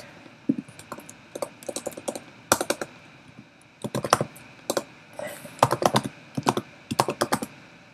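Computer keyboard being typed on: short runs of quick keystrokes with pauses between them.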